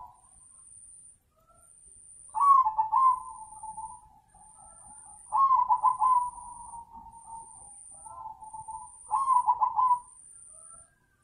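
Crossbred zebra dove (perkutut) singing its cooing song. Three phrases come about three seconds apart, each opening with a loud run of quick rolling notes and trailing off into softer, lower cooing.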